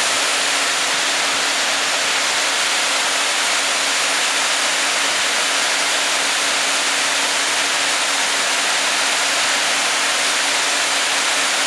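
Steady rush of creek water pouring over and below a dam, an even unbroken hiss with a faint low hum underneath.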